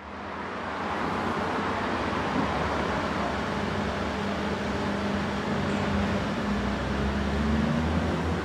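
Steady street traffic noise with a low hum from passing vehicles, fading in at the start.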